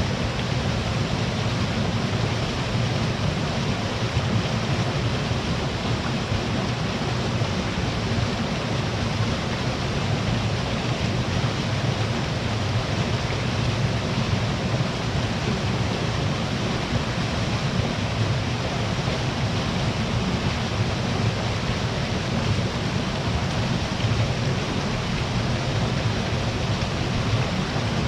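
Waterfall pouring: a steady, unbroken rush of falling water, strongest in its low rumble.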